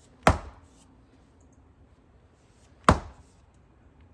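Two sharp axe blows, about two and a half seconds apart, into a knotty log round on a chopping block. Striking close to the big knot, the axe bounces off without splitting the wood.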